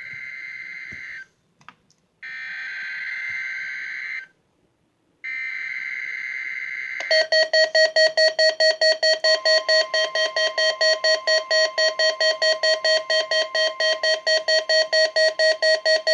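NOAA Weather Radio Specific Area Message Encoding (SAME) test signal. First come three short bursts of buzzy digital data tones: the SAME header, sent three times. Then a loud rapidly pulsing alarm beep, about three to four beeps a second, with the steady 1050 Hz warning alarm tone joining it about two seconds later.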